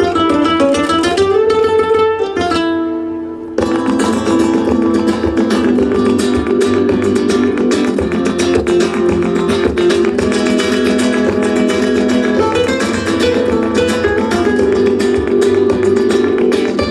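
Music from the show's soundtrack: a held melodic line that dips and rises in pitch and fades out, then about three and a half seconds in, Latin American guitar music with fast strumming starts and carries on.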